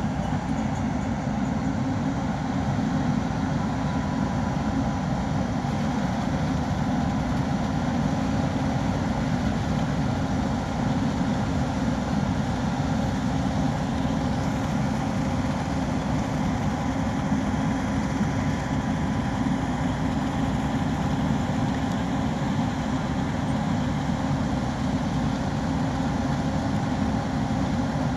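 A large diesel construction machine's engine running steadily: a constant low drone that does not rise or fall.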